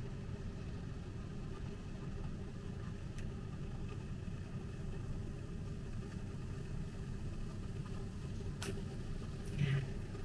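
Steady low hum with a few faint clicks and a short louder knock near the end.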